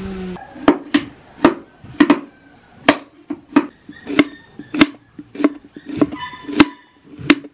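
Kitchen knife slicing peeled unripe saba bananas into thin rounds on a wooden chopping board: a steady run of about a dozen sharp knocks, roughly one every half second or so.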